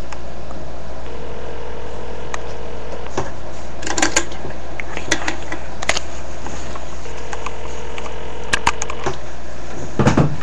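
Telephone ringback tone heard over the line: two steady rings of about two seconds each, some six seconds apart, meaning the outgoing call is ringing and not yet answered. A steady hum runs underneath, with scattered clicks and a thump near the end.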